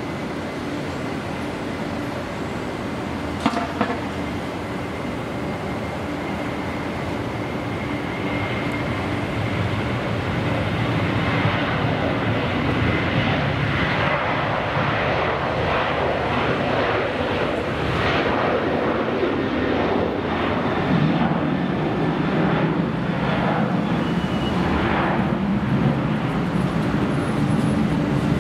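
Boeing 737's jet engines at takeoff thrust during the takeoff roll: a steady rumble that swells louder about a third of the way in as the airliner accelerates toward lift-off. A faint steady high whine sits under it at first, and there is one short click a few seconds in.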